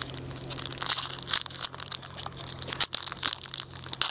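Foil wrapper of a Bowman Chrome baseball card pack crinkling and tearing as it is ripped open by hand, an irregular run of crackles throughout.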